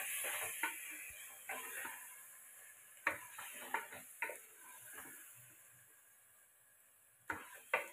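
Wooden spatula stirring and scraping a thick frying masala in an aluminium pressure cooker, with a sizzle that dies away. A few sharper knocks of the spatula against the pot come near the end.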